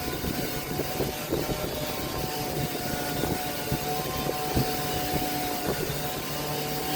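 Electric woodworking power tool running steadily under load, its motor giving a constant whine over an uneven, rough rumble.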